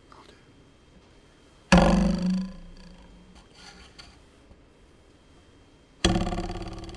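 Metal ruler held down on a table edge with its free end plucked, twanging twice. Each twang starts sharply and dies away over about a second: the first comes a couple of seconds in, the second near the end.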